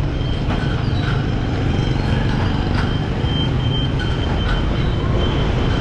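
Steady ride noise of a motorbike moving along a wet street: engine, tyres on wet asphalt and wind on the microphone, with a faint steady high whine.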